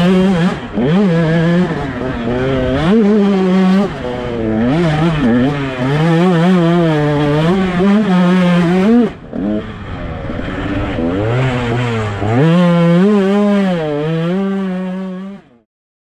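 Two-stroke motocross bike engine, heard close up from the bike as it is ridden, revving up and down with the throttle and gear changes in a constant rise and fall of pitch. It drops away briefly about nine seconds in, picks up again, and cuts off suddenly near the end.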